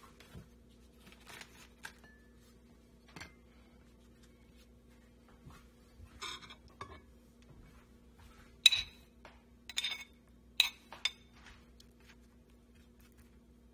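Metal spoon clinking against plates as scrambled eggs are scooped onto a flour tortilla: four sharp clinks with a short ring in the second half. Softer handling knocks and rustles come earlier.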